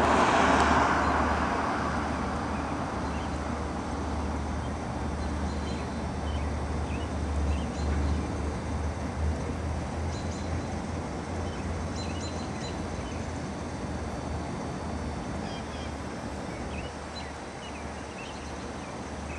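Outdoor ambience: scattered short bird chirps over a steady low hum. A rush of noise at the very start dies away over about two seconds.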